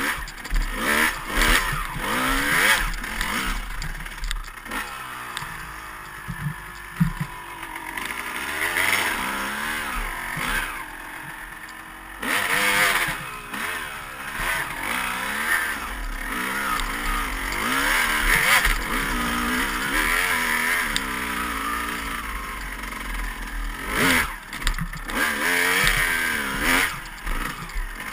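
Dirt bike engine being ridden hard, the revs climbing and dropping again and again as the rider works through the gears, with occasional knocks and rattles as the bike bounces over rough ground.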